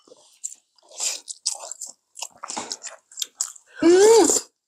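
Close-miked eating sounds: chewing and biting with small clicks of chopsticks and spoons. About four seconds in comes a loud, brief pitched 'mm' that rises and then falls, as soup is sipped from spoons.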